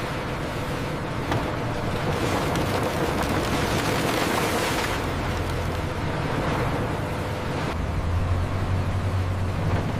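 Steady rumble and hiss of industrial factory machinery running, with a low hum that comes up louder about eight seconds in.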